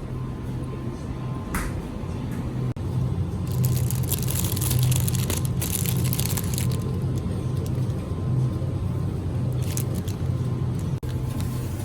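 Background music with a steady low bass line, with a hiss that swells for a few seconds in the middle.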